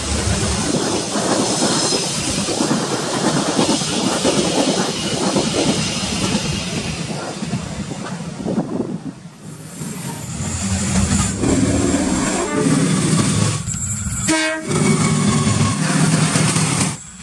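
A train hauled by a CC 206 diesel-electric locomotive passing at speed, its wheels clattering on the rails in a dense rushing noise. From about halfway a lower, steadier pitched sound from the locomotive takes over.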